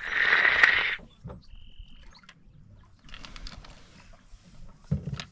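Drinking from a glass water bottle: a loud, noisy rush lasting about a second at the start, then a short high peep, faint handling noise and a low knock near the end.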